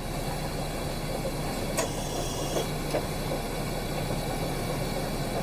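A steady low hum over a faint even hiss, with one soft click a little under two seconds in.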